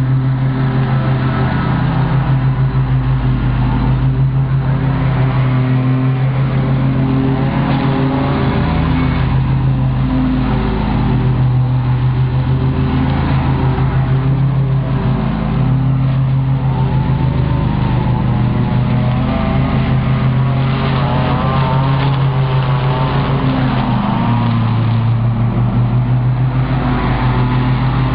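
Zero-turn riding mower's engine running steadily under load while mowing, a loud continuous low drone.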